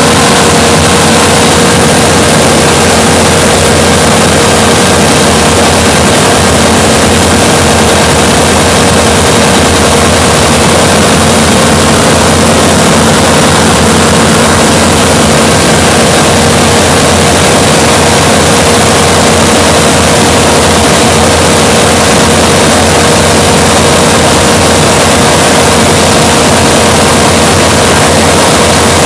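Light high-wing aircraft's engine and propeller running steadily in cruise, heard from inside the cockpit as a loud, unchanging drone with a rush of air noise and a steady hum.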